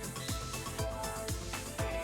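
Background music with a steady beat of low kick-drum thumps under sustained notes.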